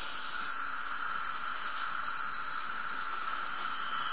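Dental suction running with a steady hiss, a faint constant tone inside it.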